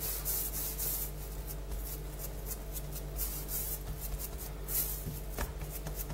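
Hands rolling a log of semolina dough back and forth on a granite countertop: soft, repeated rubbing strokes over a steady low hum.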